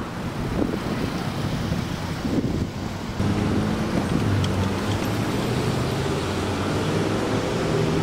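Road and engine noise of a car driving through city streets, with wind buffeting the microphone; a steadier, louder engine hum comes in about three seconds in.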